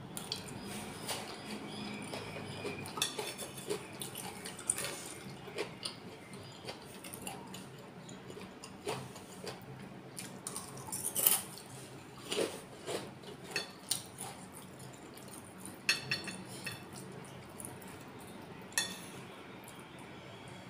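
Close-up eating sounds of a person eating nasi pecel: chewing and wet mouth sounds, with a metal spoon and fork clinking and scraping on a plate. Many short sharp clicks are scattered throughout, the loudest about eleven seconds in.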